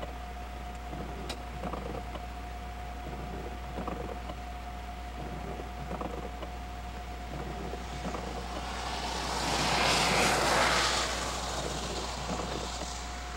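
A car passing on the road, its tyre and engine noise swelling to a peak about ten seconds in and then fading, over a steady faint hum.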